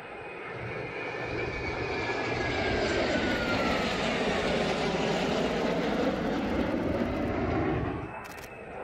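Jet engines of an Airbus CC-150 Polaris tanker and two CF-18 Hornet fighters flying past in formation: a roar that builds up, with a whine that falls in pitch as the jets pass, then drops off sharply about eight seconds in.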